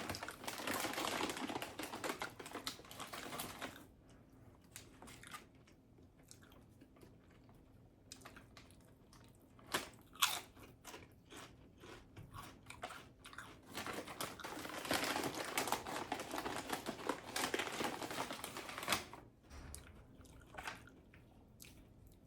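Close-up chewing and crunching of a tuna melt sandwich on toasted bread. Dense crunching comes for about the first four seconds and again from about 14 to 19 seconds, with quieter mouth clicks and smacks in between.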